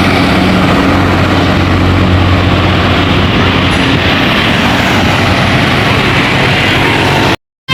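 A bus engine running close by with a steady low hum under dense road noise, cutting off suddenly near the end.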